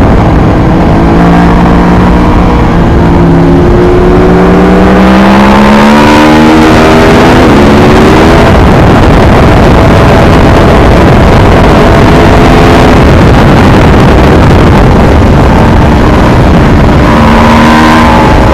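Aprilia Tuono V4R's V4 engine heard from the rider's seat under hard acceleration, its pitch climbing over several seconds, then largely buried in loud wind rush at speed before the engine note comes through again near the end.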